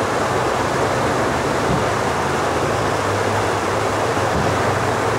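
Steady rushing of flowing river water, with a faint low steady hum beneath it.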